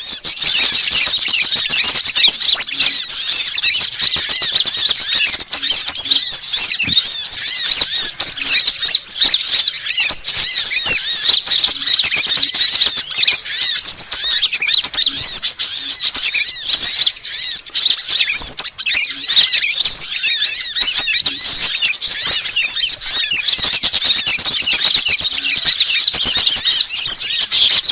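Dense, unbroken chorus of many small songbirds chirping and twittering at once, high-pitched rapid trills and glides overlapping, from a bird-luring call recording mixing sunbirds and bulbuls.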